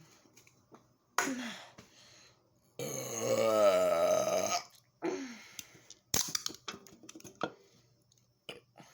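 A man belching from gulping carbonated Red Bull energy drink. There is a short burp about a second in, then a long pitched belch of nearly two seconds around three seconds in, which is the loudest, and another short burp around five seconds. A few sharp clicks and smaller sounds follow.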